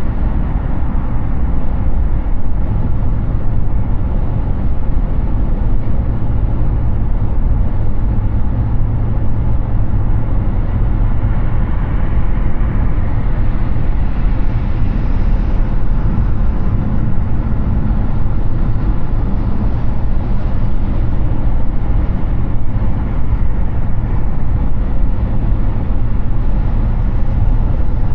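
Steady road and wind noise of an electric Hyundai Ioniq 6 travelling at highway speed: a low rumble under a hiss, with no engine note. The hiss swells briefly about halfway through.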